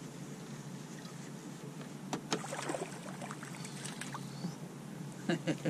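Scattered clicks and light knocks of fishing tackle in a small jon boat as a crappie is reeled in, over a steady low hum. A cluster of louder clicks comes near the end.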